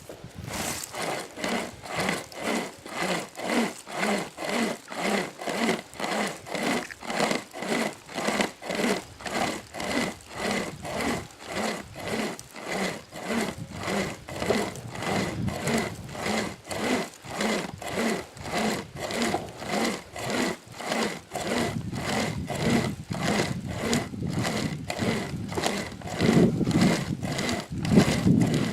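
Sportsman pocket chainsaw, a hand-pulled chain with handles, sawing back and forth through a live oak trunk in a steady rhythm of about two rasping strokes a second. The strokes grow rougher and louder in the last several seconds.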